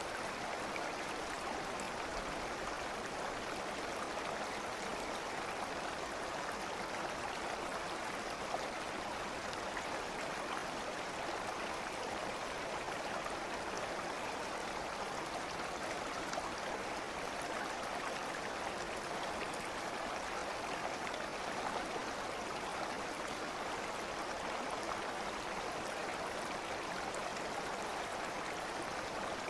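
A stream of water flowing in a steady, even rush, with no breaks or changes.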